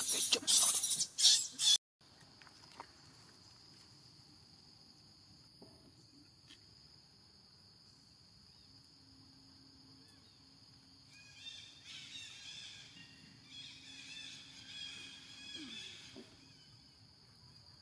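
Faint outdoor ambience with a steady high insect drone. Over the drone, a run of high, chirping calls repeats for about five seconds in the later part. The opening two seconds are much louder and cut off abruptly.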